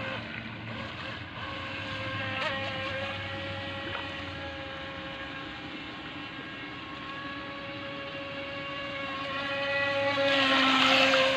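Electric motor of a small iOcean Tiger Shark RC boat running on the water, a steady whine that swells louder about ten seconds in.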